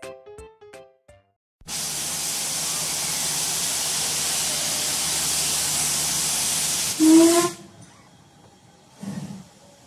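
Steam locomotive letting off a steady hiss of steam for about six seconds, ending in a short, loud whistle blast that rises slightly in pitch; a soft puff of steam follows near the end. A few piano notes die away at the very start.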